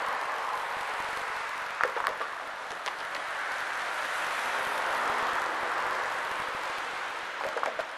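A car driving past on the road, with tyre and engine noise that swells to its loudest about five seconds in. A few short sharp knocks come about two and three seconds in and again near the end.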